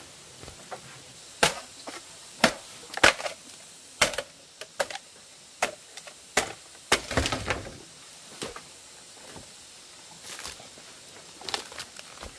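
Blade chopping into wood: about a dozen sharp, irregular strikes, some in quick pairs, with a short crackling rustle about seven seconds in.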